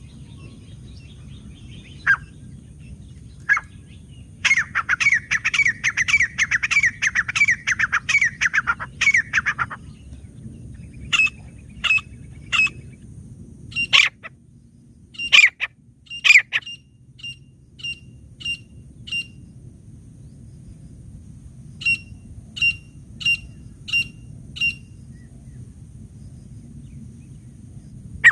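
Grey francolin calling: a fast run of repeated notes for about five seconds, then scattered single sharp calls and a series of short, evenly spaced high notes.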